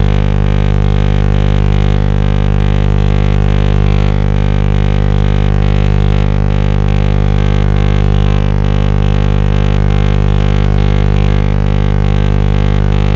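Shortwave radio signal received by a web SDR tuned to 14693.7 kHz: a loud, continuous buzzing tone with many evenly spaced overtones, heaviest in the low end, with a fine rapid flutter in the upper overtones.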